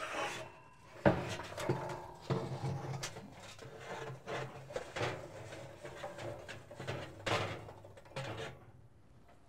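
Lit charcoal briquettes clattering and tumbling out of a metal chimney starter onto the steel firebox grate, with knocks and scraping of the chimney against the steel. The sharpest knock comes about a second in, and the clatter dies away near the end.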